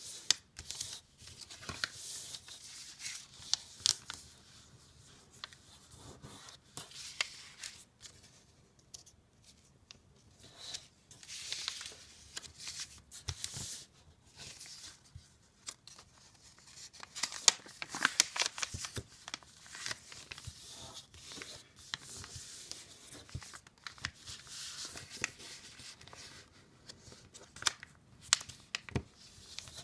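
A sheet of paper being folded and creased by hand: on-and-off rustling and crinkling, with sharp little clicks and swishes as fingers press and run along the folds.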